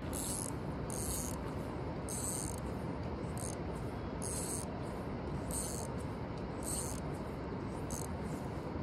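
Short, high, buzzy insect chirps, roughly one a second at irregular spacing, over a steady rushing background.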